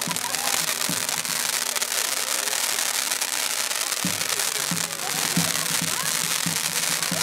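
Ground firework fountains spraying sparks, with a dense steady hissing and crackling. Voices are heard faintly in the background, and low thumps repeat from about halfway through.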